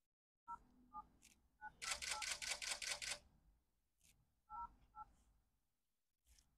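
Phone keypad tones as a number is dialled: short two-note beeps, one per key press, with a quick run of clicking about two seconds in. Faint.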